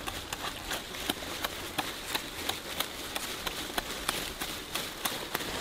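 Chewing and lip smacking of someone eating chicken with the hands: a run of irregular sharp clicks, several each second.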